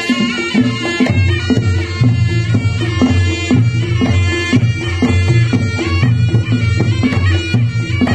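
Live Reog Ponorogo gamelan music: a shrill, reedy slompret shawm playing a bending melody over kendang drums and gong strokes in a steady beat.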